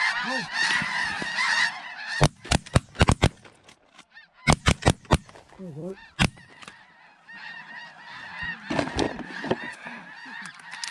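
A large flock of snow geese calling overhead in a dense, overlapping clamor, which drops away after about two seconds. A run of sharp, loud clicks follows, then scattered honks, and the flock's calling comes back fainter near the end.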